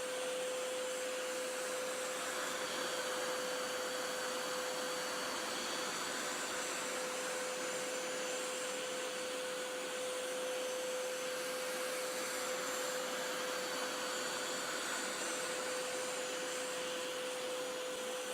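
Hoover Power Scrub Elite Pet upright carpet washer running steadily: a constant rushing hiss with a steady hum.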